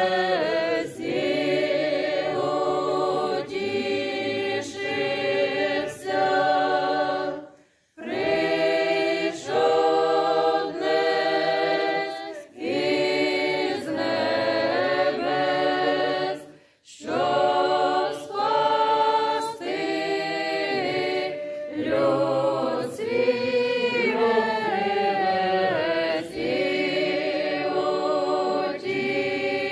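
Mixed church choir singing a Ukrainian Christmas carol (koliadka) a cappella, in several voices with long held notes. The singing breaks off briefly twice, about 8 and 17 seconds in.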